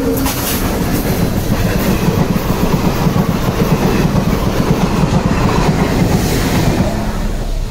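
Indian Railways passenger train passing close by, the locomotive and then the coaches: a loud, steady rumble with the clickety-clack of wheels on the rails. The tail of the train's horn fades out in the first moment.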